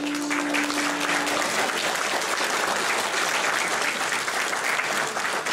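Audience applauding after a live song; the song's last held note carries on for about the first second and a half under the clapping.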